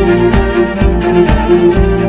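Background music: bowed strings such as violin over a steady beat.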